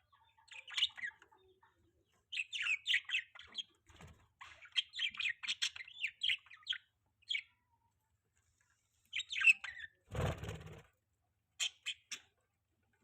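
Budgerigars chirping and chattering in quick bursts of twittering notes, with a pause in the middle. About ten seconds in comes a brief rustling burst.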